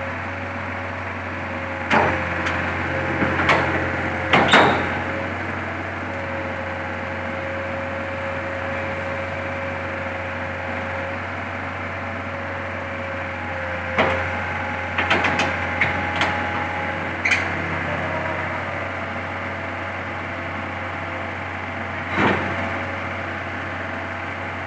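Mini excavator's diesel engine running steadily, with sharp knocks a few seconds apart, in a cluster about halfway through and once more near the end.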